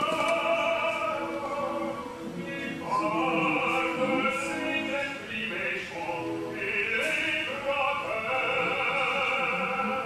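Opera music: operatic singing with classical accompaniment, sustained wavering notes.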